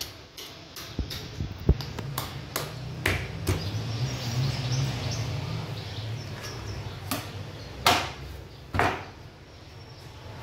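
Butcher's knife cutting and scraping along lamb ribs and shoulder bone on a cutting board: a run of small clicks and knocks, then two louder scraping strokes near the end, over a low steady hum.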